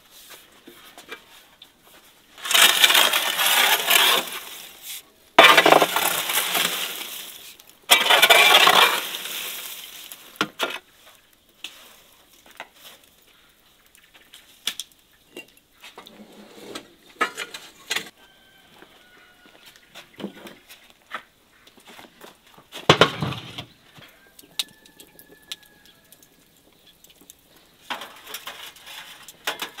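Embers raked across the floor of a wood-fired brick oven in three long scrapes, followed by scattered clinks and knocks of a metal tray and glass jars, with one sharp knock near the middle.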